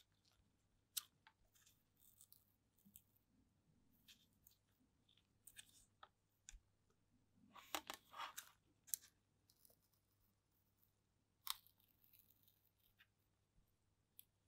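Transfer paper crackling as it is peeled slowly off a metal plate by gloved fingers: faint scattered crackles and clicks, with a denser run of crackling about eight seconds in.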